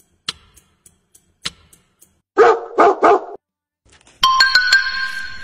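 A dog barks a quick run of short barks, after a few sharp clicks. About four seconds in, a steady electronic tone of several pitches at once begins.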